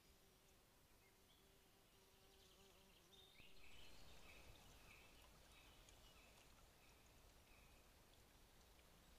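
Faint outdoor ambience: a buzzing insect for the first three seconds, then a series of short, high chirps for the next few seconds.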